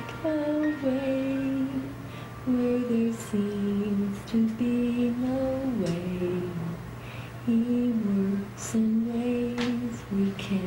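A solo voice singing a slow, gentle worship song in long held notes that step up and down.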